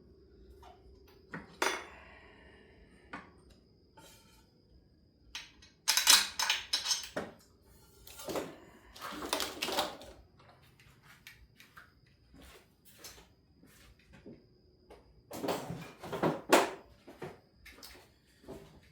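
Metal wrenches and sockets clinking and clanking against the engine and each other while the alternator is unbolted. The clatter comes in a few louder bursts between quieter single clicks.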